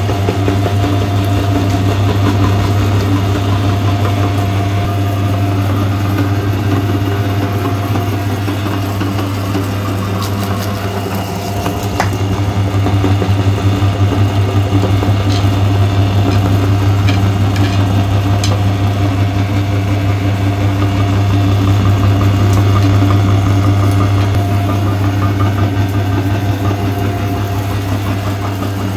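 Electric meat grinder running with a steady low hum while it pushes ice cream through its cutting plate, with a few faint ticks in the middle.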